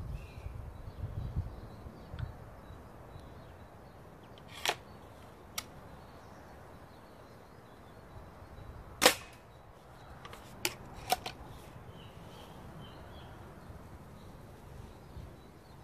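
Sharp cracks of a .177 Mercury Chili Edge air rifle being fired at targets: five short reports spaced a second or more apart, the loudest about nine seconds in, with two close together near eleven seconds.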